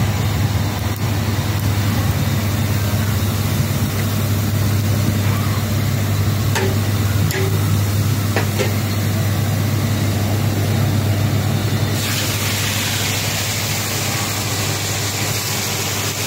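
A steady, loud low hum like an engine running nearby. From about twelve seconds in, a bright hiss of fish pieces deep-frying in oil in a wok joins it.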